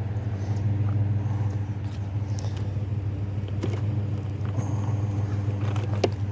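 Truck engine running steadily with a low hum, and a few light clicks near the end.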